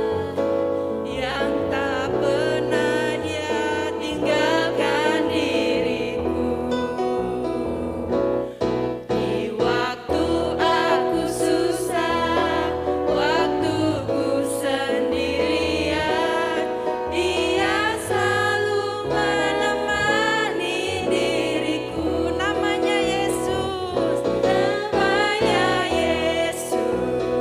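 Christian praise song: voices singing a melody over keyboard accompaniment and a stepping bass line.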